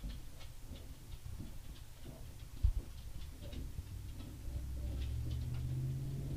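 Fountain pen nib scratching short, quick strokes on paper: a scatter of faint ticks and scratches. One dull low thump about two and a half seconds in, and a low hum comes in over the last couple of seconds.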